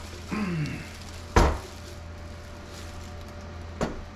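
A short falling grunt of effort, then one heavy thud about a second and a half in as a heavy power inverter is set down on a countertop, and a lighter knock near the end.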